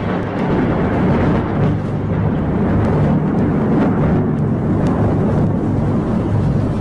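A vehicle engine running loud and steady: a low rumble with noisy hiss over it.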